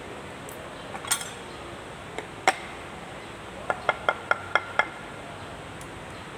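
Metal parts clinking while a piston and connecting rod are fitted into a cylinder bore of a Kubota Z851 diesel block: a few single clinks, then six quick ringing taps, about five a second.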